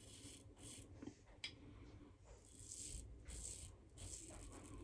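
Faint scraping strokes of a PAA Original DOC double-edge safety razor cutting through about three days of stubble, several short passes in a row with a small click about a second and a half in.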